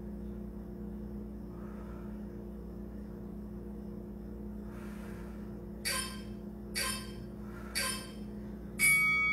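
Workout interval timer counting down: three short beeps about a second apart, then a long beep starting near the end, marking the end of the work interval.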